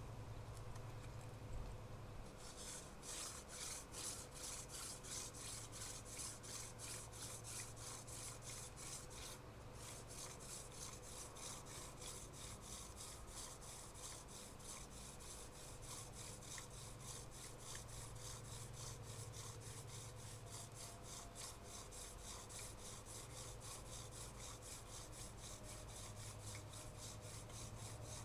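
Hand-drill fire by friction: a thin mullein spindle twirled between the palms, grinding into a soft ivy hearth board in a steady run of repeated rubbing strokes as the spindle is driven back and forth to build heat for an ember.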